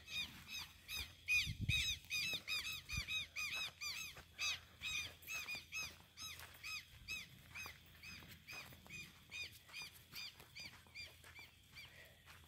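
A rapid series of high, squeaky chirps from a calling animal, about four a second, each rising and falling in pitch, growing fainter toward the end. A low thud sounds about a second and a half in.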